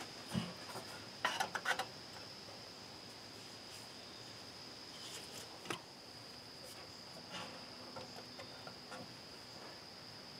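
Steady high-pitched insect trill, like crickets, with scattered light clicks and knocks of hands handling the generator's control panel and wiring, a small cluster of them about a second and a half in.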